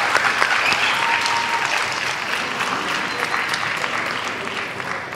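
Audience applauding in an auditorium, a dense patter of many hands clapping that slowly dies down.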